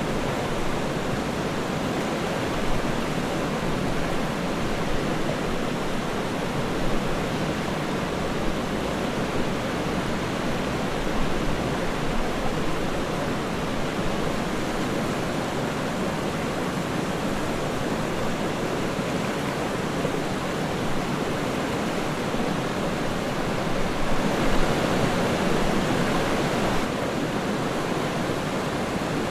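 Waterfall: water falling and splashing in a steady, unbroken rush, a little louder for a few seconds near the end.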